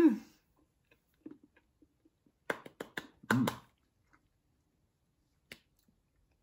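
Mouth sounds of people tasting chocolate: a short 'mm' hum at the start, then a quick run of lip smacks and tongue clicks with another short hum about three seconds in, and a single faint click later.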